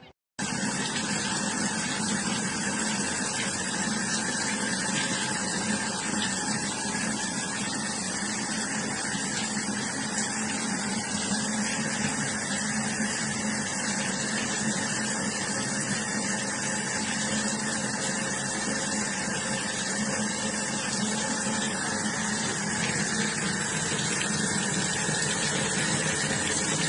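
Steady rushing of running water, like a tap filling a sink, with a low hum under it; it starts abruptly a moment in and holds an even level throughout.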